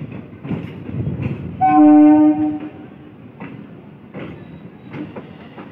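Electric multiple-unit (EMU) local train sounding its horn once for about a second as it runs in close by, over a rumble and repeated clacks of the wheels crossing rail joints.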